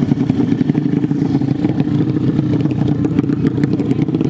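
A 150 cc drag-race motorcycle engine running loud and steady, holding its revs without rising or falling.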